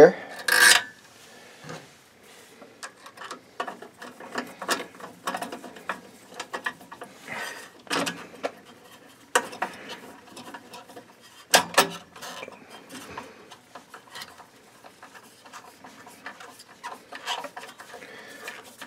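Screwdriver turning a Phillips screw and hands fitting metal parts on a Riello oil burner: scattered light clicks, scrapes and rubbing, with a few sharper clicks around the middle.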